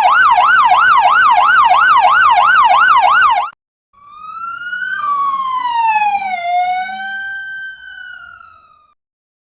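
Police siren: a fast yelp, its pitch swinging up and down about three times a second, stops abruptly; after a short gap a slower wail rises and then falls in pitch, fading out.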